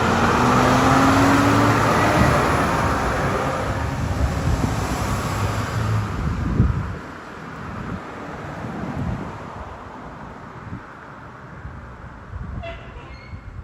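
Fire truck passing close by, loud at first and then fading away over about seven seconds, with low steady horn tones under the rush of the passing vehicle.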